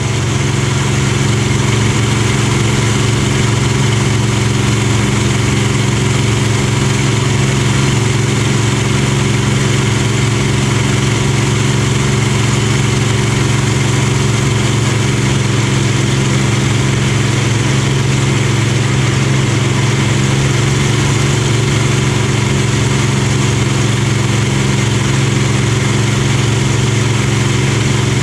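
Supermarine Spitfire's Rolls-Royce Merlin V12 engine running at a steady cruise in flight, a continuous even drone that holds level throughout.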